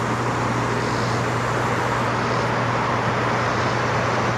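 Steady mechanical noise with a constant low hum, unchanging throughout.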